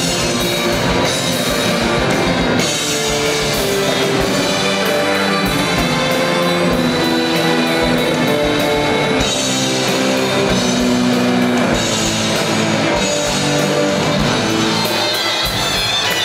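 A live rock band playing, with drum kit and electric guitars.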